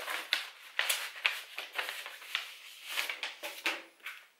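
Paper envelope with a tightly stuck flap being torn open and rustled as a catalogue is pulled out. It comes as irregular crackly tearing and crinkling that dies away near the end.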